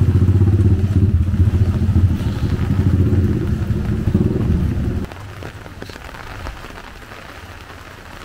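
A motor vehicle's engine running close by, a loud low pulsing rumble that stops abruptly about five seconds in. Quieter rain and water hiss with a few clicks remains.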